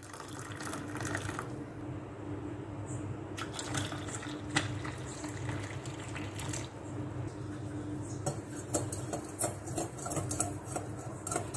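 Hot tea pouring into a glass cup, then milk poured in, then a spoon stirring with quick clinks against the glass near the end, over a steady low hum.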